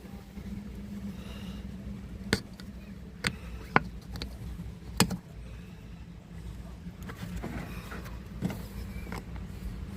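Sharp clicks and taps from handling a plastic motor oil bottle and its cap, four louder ones in the first half, over a steady low hum.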